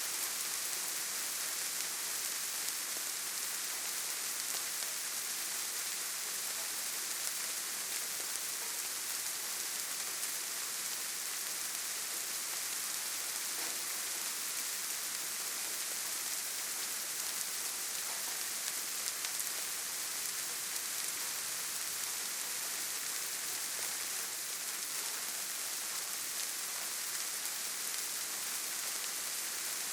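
Gentle rain falling steadily onto leaves, grass and ground: an even hiss with faint scattered drop ticks.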